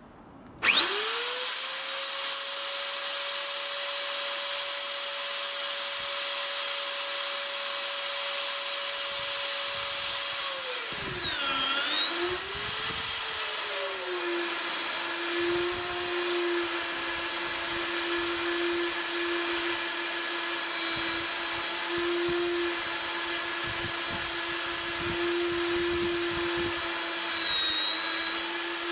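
JEI Mini Beast Auto magnetic drill's 1000 W motor starting about a second in and running up to a steady high whine. Around eleven seconds in the pitch drops sharply, swings back up briefly, then settles lower and steady, the motor now under load as it drills.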